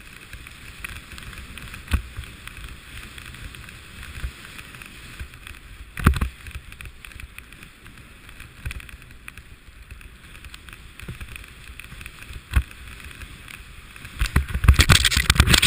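Snowboard sliding over snow, a steady hiss heard close on a board-rider's camera, broken by a few sharp knocks. Near the end it grows into a louder, denser scraping rush.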